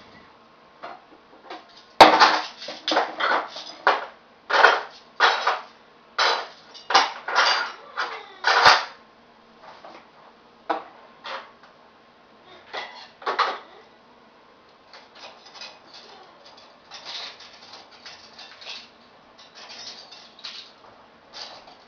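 Metal cutlery clattering and clinking as a dishwasher is unloaded into a kitchen drawer. There is a quick run of loud clatters for several seconds, then sparser, softer clinks.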